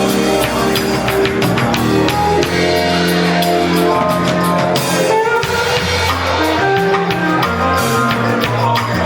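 A live band playing: drum kit, bass and guitar under sustained melodic notes, at a steady loud level.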